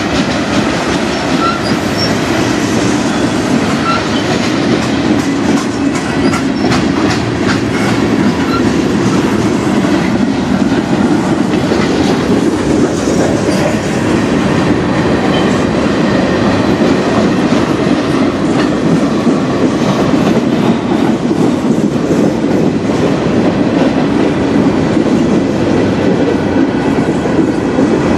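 Freight cars of a mixed manifest train rolling past close by: a steady, loud rumble of steel wheels on the rails, with clacking as the wheels cross the rail joints.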